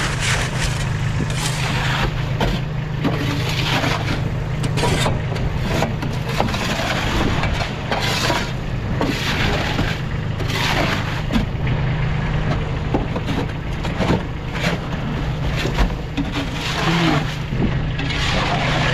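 A shovel scraping out a thawing trailer bed, in a run of irregular scraping and crunching strokes about one every second or so. A vehicle engine idles steadily underneath.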